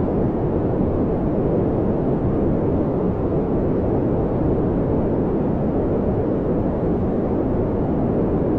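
Brown noise: a steady, even rumbling hiss with its weight in the low end, unchanging throughout.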